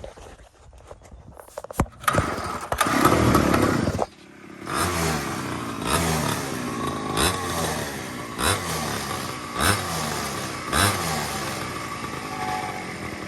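Pocket bike's small engine: a few clicks, then it fires and revs hard for about two seconds and cuts out. It catches again and is revved in short rising blips about once every second and a bit. The owner says it runs well but bogs at one point in the rev range after a performance carburettor was fitted.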